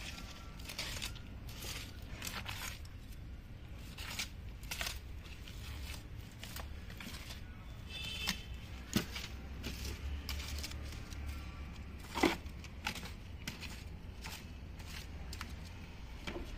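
Thin stick scraping and stirring through loose soil and cow manure, a steady run of faint scratches with a few sharper knocks about nine and twelve seconds in.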